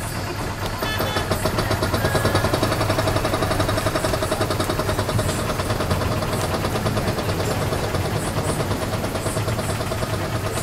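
Tour boat's engine idling steadily, an even low rumble that grows a little louder about a second in.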